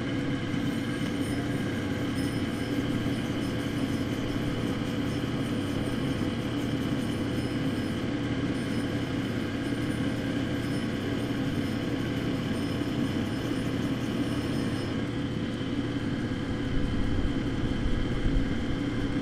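Cabbing machine's diamond wheel running under a water drip, smoothing the edge of a dichroic glass cabochon held on a dop stick: a steady motor hum with a high grinding hiss. The hiss stops about three-quarters of the way through, and a few light knocks follow as the stone is handled.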